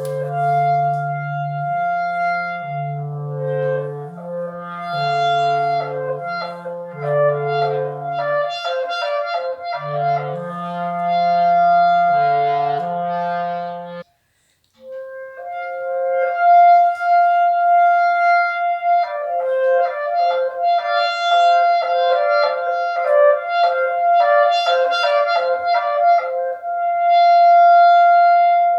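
Improvised clarinet in several overdubbed layers: low held notes changing under quick runs and long higher tones. Halfway through, the sound cuts off abruptly for about a second. It then returns with a long held note over rapid running notes.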